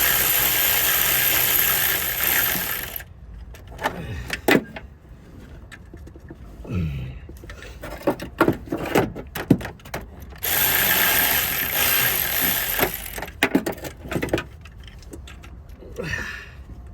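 Power tool running in two spells of about three seconds each, twisting out a stuck long alternator mounting bolt on an Isuzu 4JJ1 engine. Clinks and knocks of tools on metal come between the two spells.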